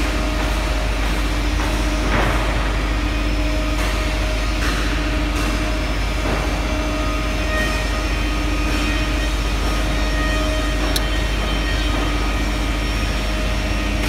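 Loud, steady hum of running workshop machinery, with a few short metallic clicks from pliers twisting wire onto a hose fitting.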